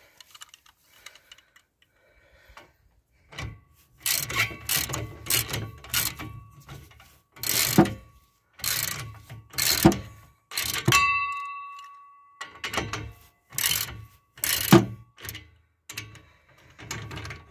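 Socket ratchet tightening the nuts of a bolted exhaust pipe clamp, heard as repeated bursts of quick pawl clicking with the handle swung back and forth. Partway through, a metal clink rings briefly.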